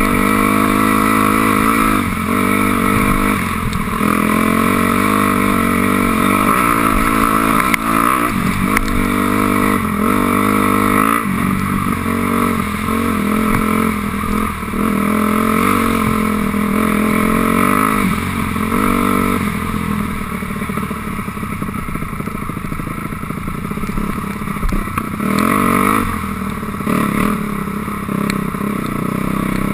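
2006 Honda CRF250R's single-cylinder four-stroke engine revving up and down with the throttle while riding, easing to lower revs for a few seconds about two-thirds of the way through.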